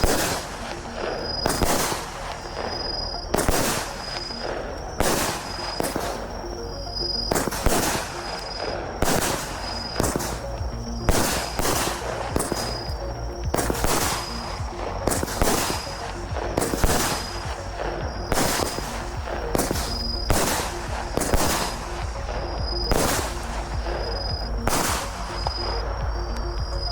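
Albert 'Tiger King' 16-shot, 18 mm firework battery (cake) firing, a sharp shot or burst about every second in a long, steady series.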